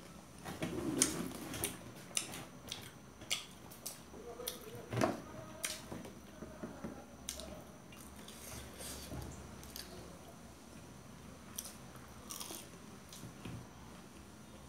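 Two people biting and chewing fried momos, with many short clicks and taps of forks on steel plates scattered among the mouth noises.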